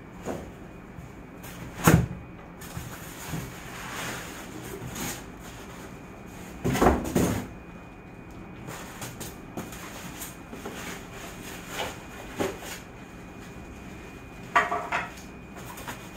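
Packaging being handled around a boxed treadmill: scattered knocks and rustles of plastic wrap, foam and cardboard, with a sharp knock about two seconds in and a louder bumping rustle around seven seconds.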